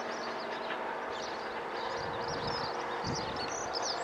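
Birds chirping and singing in quick, repeated calls, over the faint steady hum of a diesel train fading into the distance. There is a brief low rumble about three seconds in.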